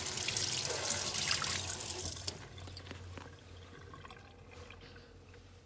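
Water running from a tap and splashing onto a sheet of paper held under the stream, cut off a little over two seconds in.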